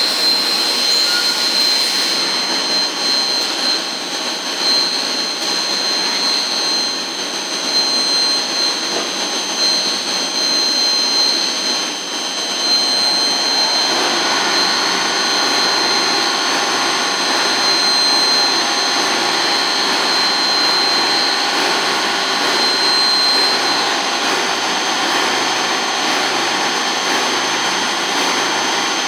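Biglia B470 YMS Quattro CNC lathe running a machining cycle: a steady machine noise with high-pitched whines. About halfway through the pitch pattern shifts as new, lower whining tones come in.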